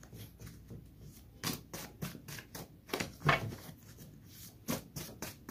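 Paper index cards being handled and shuffled by hand: a run of short, crisp paper flicks and taps, some in quick succession.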